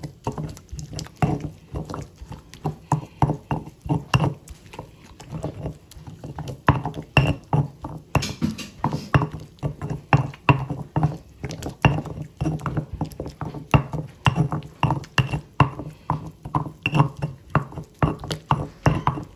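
Stone pestle (tejolote) pounding and grinding roasted tomatoes and serrano chiles in a volcanic-stone molcajete. It makes a steady run of stone-on-stone knocks through the wet mash, about two or three a second.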